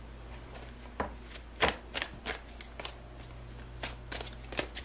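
A tarot deck being shuffled by hand: an irregular run of soft slaps and snaps as cards strike each other, the loudest about a second and a half in.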